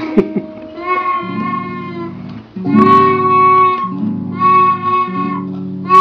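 A recorder blown by a small child in about four long, steady notes with breaks between, while the open strings of a nylon-string classical guitar are plucked and left ringing underneath.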